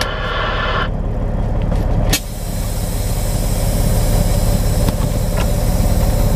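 Semi-truck diesel engine idling steadily inside the cab. About two seconds in there is a sharp click, followed by a steady hiss.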